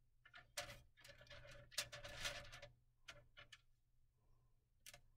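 Faint clicks and rustling of small plastic counting bears being set by hand into aluminum-foil boats floating in water. There is a longer rustle of about a second and a half, then a few more separate clicks.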